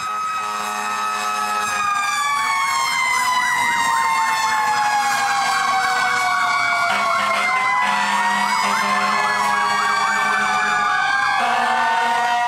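Several fire truck sirens sounding at once, slow rising and falling wails overlapping with a fast yelping warble.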